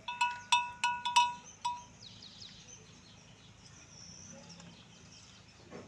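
A small metal bell clanking about six times in quick, uneven succession, each strike ringing at the same clear pitch and dying away within the first two seconds. Faint bird chirps follow.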